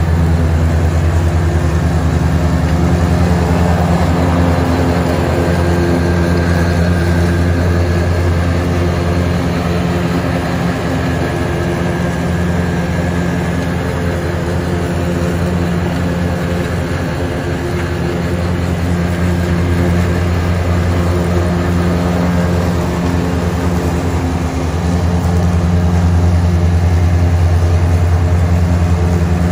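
John Deere 2025R compact tractor's three-cylinder diesel engine running under load, driving a Frontier GM1072 finish mower through tall grass: a steady drone, a little quieter through the middle and louder again near the end as the tractor passes close.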